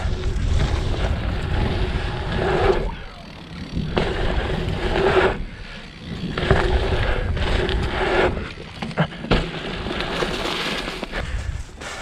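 Mountain bike riding a run over dirt jumps: knobby tyres rolling and scraping on packed dirt in several swelling surges, with wind rumbling on the microphone.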